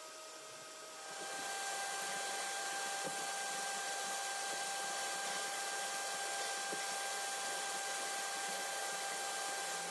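Abrasive blast gun in a blast cabinet switched on about a second in, a steady hiss of compressed air and grit striking the cast iron stand.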